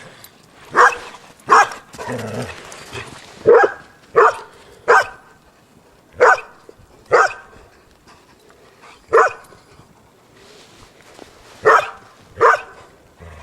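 A dog barking outdoors: about ten short, sharp barks, several in quick pairs, spaced irregularly with pauses of a second or two between.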